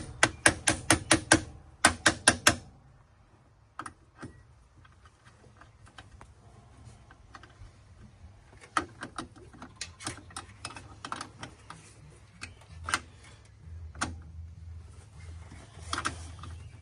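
Ratchet wrench clicking in quick, even runs of clicks as a nut on the battery terminal or kill switch is worked, loudest in the first two and a half seconds; after that it goes on in sparser, irregular clicks.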